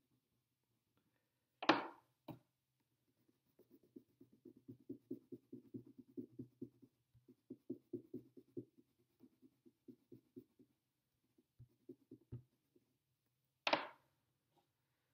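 Marker scribbling on sketchbook paper in quick back-and-forth strokes, about five a second, colouring in an area. Two short, louder rustles, one about two seconds in and one near the end.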